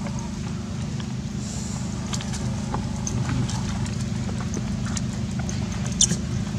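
Dry leaf litter crackling and rustling in irregular clicks as monkeys scuffle and roll on the forest floor, with a sharp louder crack about six seconds in, over a steady low rumble.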